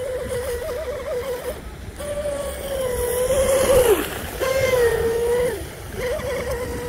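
Electric RC boat's brushless motor, an SSS 2960 3000 kV, whining at high speed. It comes in several runs with short gaps between them, and the pitch wavers and dips as the throttle is worked. Water hiss and spray from the hull sound under it.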